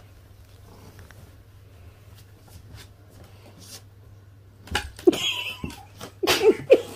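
A low steady hum with a few faint ticks, then several short, loud vocal sounds with bending pitch in the last two seconds.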